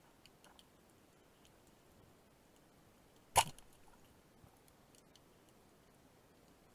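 A single sharp shot from a band-powered wooden speargun (Matador Fuoco) underwater, about three and a half seconds in, with a short ringing tail. Faint scattered crackling of the sea sounds around it.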